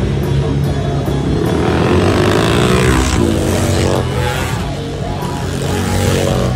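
Flat-track motorcycle engines revving hard as bikes ride through a turn, the pitch rising and falling between about two and four seconds in.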